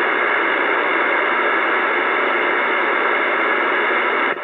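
Uniden Bearcat CB radio on channel 28 AM putting out steady static hiss while its meter shows a weak signal carrying no voice. The hiss drops a little quieter near the end.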